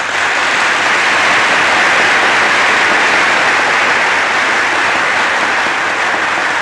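Members of Congress applauding, a dense steady clapping, heard through an old 1941 archival recording with a faint low hum.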